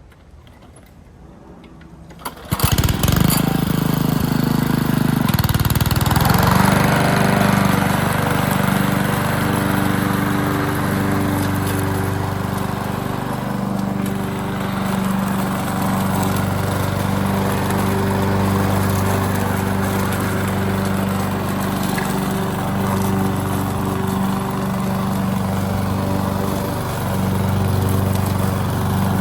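Honda 21-inch walk-behind lawn mower's four-stroke engine starting up about two and a half seconds in, settling over the next few seconds, then running steadily with small rises and falls.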